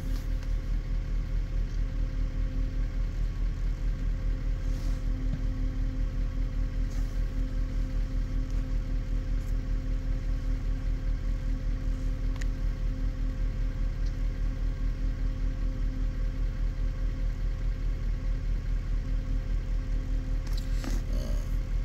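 Engine idling steadily: an even, low, pulsing hum.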